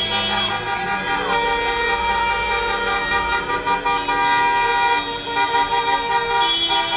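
Many car horns honking at once, long overlapping blasts at several different pitches that come and go.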